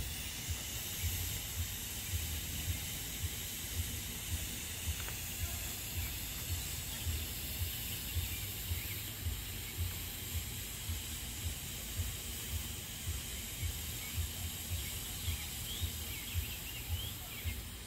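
Smoke chest firework burning with a steady hiss as thick white smoke pours out, over a low, uneven wind rumble on the microphone.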